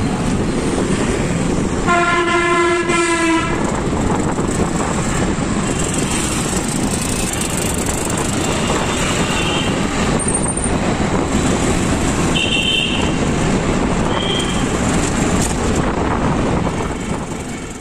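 Steady rushing road and wind noise from riding through city traffic. About two seconds in, a vehicle horn sounds for about a second and a half. Later come a few short, higher-pitched horn beeps.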